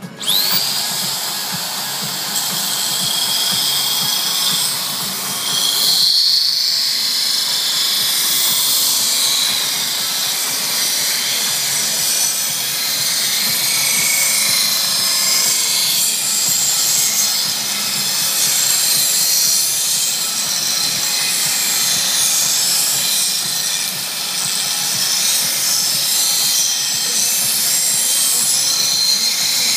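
Small electric belt grinder spinning up with a rising whine, then running steadily as the edges of a piece of mirror glass are ground on its abrasive belt: a high whine over a hissing grind, dipping briefly about six seconds in.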